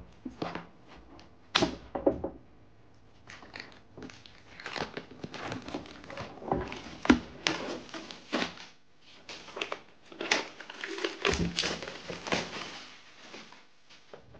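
Packaging being handled and unwrapped by hand: crinkling and tearing with a run of small clicks and several louder knocks.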